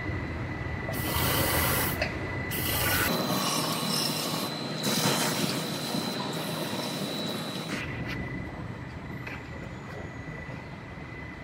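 Aerosol can of cavity wax hissing as it sprays through a long 360-degree spray wand into a truck frame rail: two short bursts, then a longer spray of several seconds that stops about eight seconds in.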